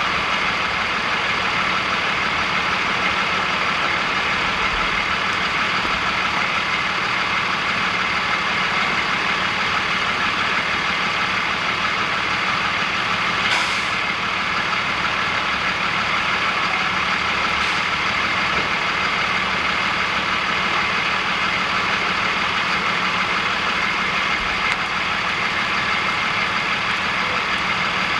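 A vehicle engine idling steadily, with one short click about halfway through.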